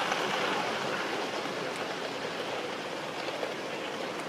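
Coaches of a gauge one live steam model train rolling past on the rails, a steady noise of wheels on track that slowly grows quieter as the train moves away.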